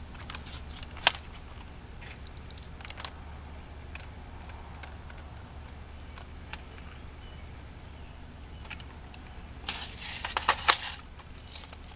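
Airsoft rifle being handled: scattered sharp plastic-and-metal clicks, loudest about a second in, and a quick run of rattling clicks near the end, over a steady low hum.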